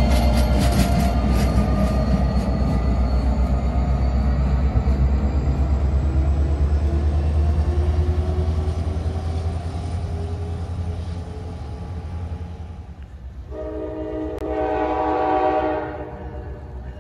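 NJ Transit commuter train of stainless Comet coaches rolling past: a heavy rumble with rapid wheel clicks over the rail joints that fades as it pulls away. About 13 seconds in, a train horn sounds once in the distance for about two seconds.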